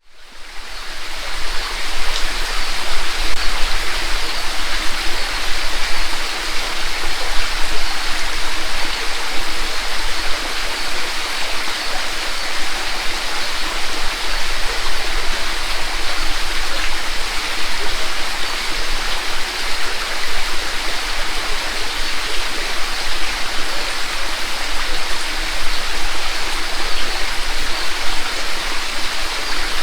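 Mountain creek flowing over a rocky bed, a steady, continuous rush of running water that fades in at the very start.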